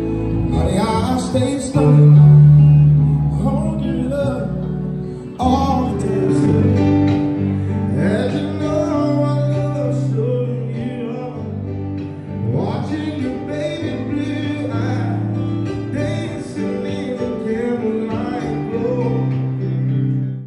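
Live music: a male singer singing into a microphone over guitar and keyboard accompaniment through a stage PA, with long held notes and sliding vocal runs. The audio cuts abruptly to another part of the performance about five seconds in.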